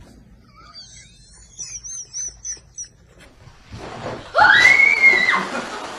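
Faint high-pitched warbling chirps, then about four seconds in a loud shriek that rises and falls over about a second.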